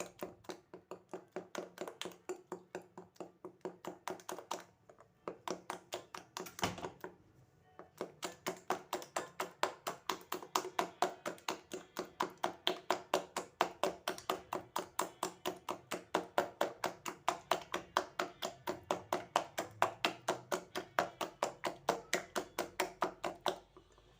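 Cake batter being beaten by hand in a mixing bowl, the utensil clicking against the bowl about five or six times a second, with two short pauses.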